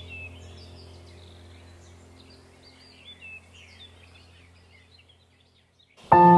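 Birds chirping over a low steady drone in an ambient background track, fading out over several seconds. Near the end a loud, sustained bell-like ambient tone starts suddenly.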